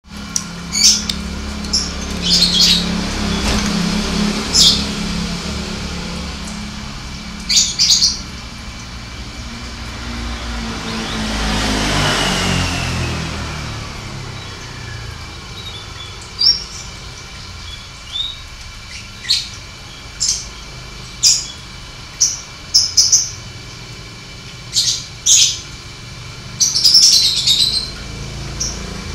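Caged domestic canary, a male that has gone quiet after a long spell of breeding, giving short scattered chirps, one every second or two, rather than a sustained song. A low rumble and whoosh swells and fades about twelve seconds in, over a steady low hum.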